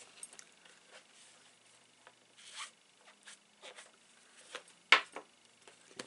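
Faint handling noises of craft supplies on a work mat: scattered soft rustles and light scrapes, with one sharp click about five seconds in.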